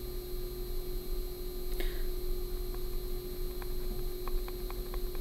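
Pen writing on a paper worksheet: a scratch and then a run of small ticks as a word is written in the second half, over a steady electrical hum.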